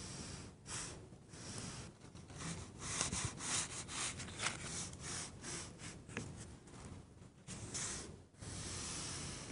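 A scratchboard tool scratching lines into the black coating of a scratchboard, a series of short, fast strokes that come most thickly in the middle.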